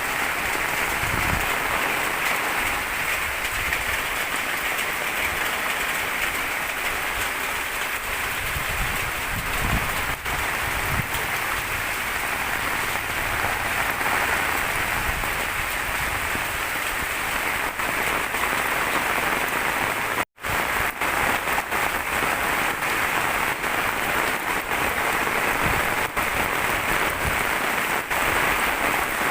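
Steady heavy rain falling on surfaces: a dense, even patter with occasional low thuds of drops. The sound cuts out for a split second about twenty seconds in, then carries on unchanged.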